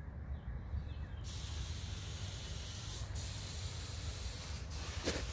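A steady hiss that comes in suddenly about a second in, over a low rumble; a bird chirps a few times before the hiss starts.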